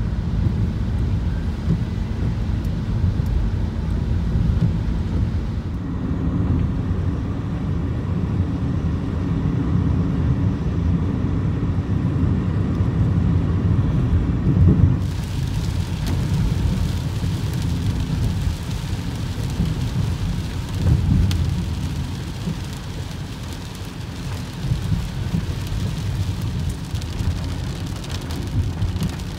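Low, steady road and engine rumble inside a moving car. About halfway through, a hiss of rain falling on the car joins it.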